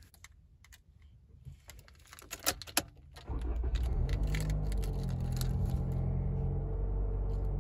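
Keys jingling and clicking as the flip key of a 2022 Toyota Corolla is worked into the ignition. About three seconds in, the car's four-cylinder engine starts suddenly and keeps running at a steady idle.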